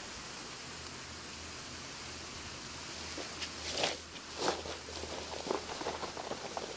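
Steady outdoor hiss. About halfway through it gives way to a run of crackling rustles and soft knocks as a backpack is lifted and set down on dry grass.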